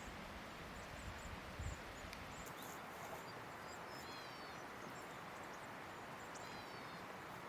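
River water flowing, a steady even rush. A small bird calls twice over it with short runs of high falling notes, about four and six and a half seconds in, and there is a brief low bump about two seconds in.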